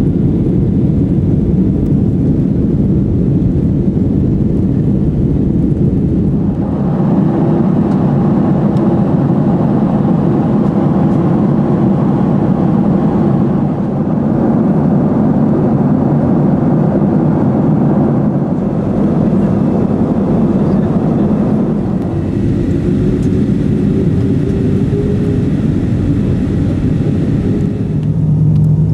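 Jet airliner cabin noise heard through the window seat: a loud, steady rush of engines and airflow that shifts in character a few times. Near the end a faint rising whine comes in, then a deeper steady hum.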